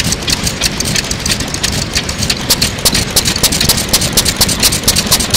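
Single-cylinder Nishifuji agricultural kerosene engine from around 1935, running steadily with a fast, even ticking over its exhaust beat.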